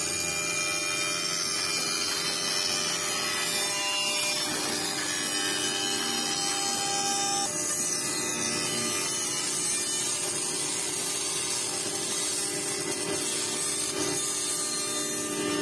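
Spindle of a five-axis CNC wood router running and milling a wooden leg that turns on the machine's lathe axis, a steady machine sound without breaks.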